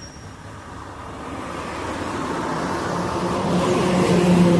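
Road vehicle noise, tyres and engine, growing steadily louder, with a steady engine hum coming in about three seconds in.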